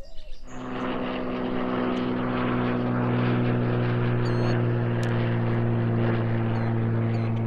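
A propeller airplane's engine drones steadily overhead, setting in about half a second in and holding an even pitch. A few faint bird chirps sound over it.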